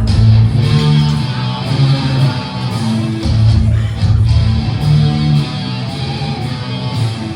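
Guitar music: strummed guitar chords with low notes changing every second or so.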